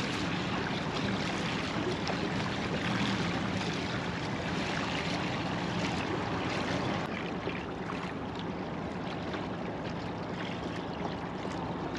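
Boat motor running steadily while trolling, with water rushing along the hull; the motor's hum eases slightly about seven seconds in.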